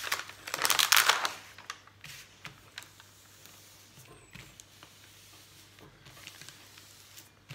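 The protective paper sheet of a diamond-painting canvas rustling and crinkling as hands smooth it flat, loudest for about the first second, then faint rubbing and light taps as the hands press it down.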